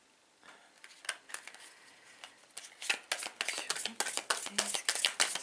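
A tarot deck being shuffled by hand: a run of quick, crisp card clicks, sparse at first and much denser in the second half.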